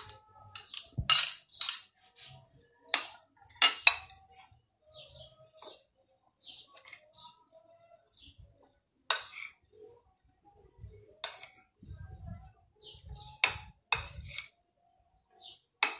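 Metal spoon clinking and scraping against a ceramic plate and bowl while grated carrot is scraped into seasoned ground meat and stirred in. The clinks are sharp and irregular, several close together at the start and a few more spaced out later.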